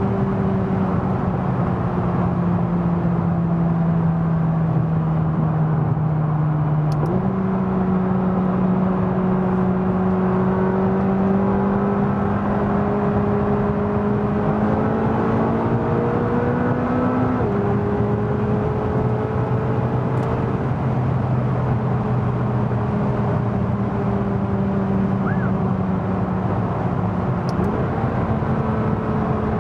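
McLaren 570GT's twin-turbo V8 droning over road noise at autobahn speed. The engine pitch sags slowly, jumps up at a gear change about seven seconds in, climbs steadily, then drops back at another gear change a little past halfway.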